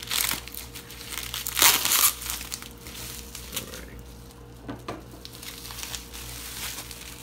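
Plastic bubble wrap crinkling as it is pulled open and peeled off a Blu-ray SteelBook case. The crinkling is loudest in the first two seconds, then turns to softer rustling as the case is handled.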